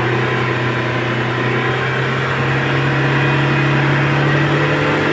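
Hyundai Starex's D4CB 2.5-litre four-cylinder common-rail diesel held at high revs, its pitch slowly climbing. It is being revved to bleed air from freshly fitted injectors, and it revs freely and strongly.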